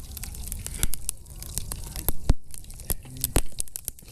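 Wood campfire crackling, with irregular sharp pops and snaps over a low background rumble.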